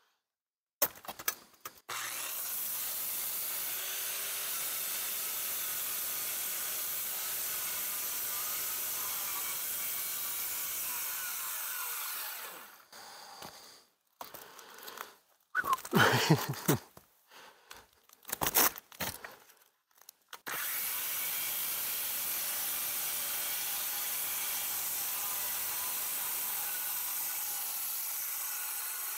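Corded Craftsman circular saw cutting through old asphalt roof shingles in two long, steady cuts. Each cut winds down as the saw stops. Between them come a few seconds of loud knocks and clatter.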